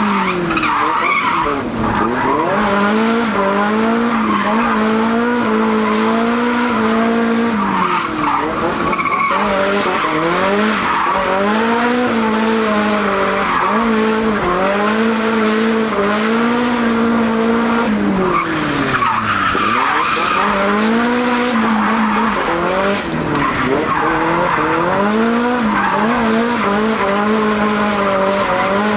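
Drift car's engine held high in the revs while the rear tyres skid and squeal through continuous slides. The revs dip and climb back several times as the car changes direction.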